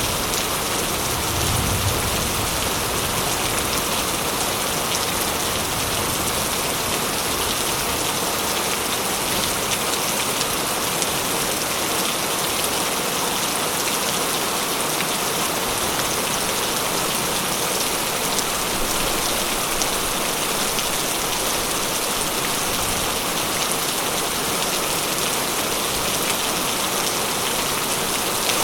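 Heavy rain falling steadily, a dense even hiss of many drops.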